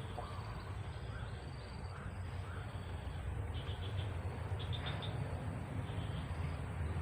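Small high-pitched chirps and short trills of wildlife, coming in scattered bursts, over a steady low rumble that grows louder near the end.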